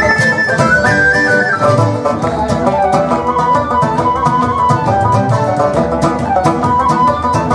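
Traditional Irish instrumental music: a quick melody running over a steady beat.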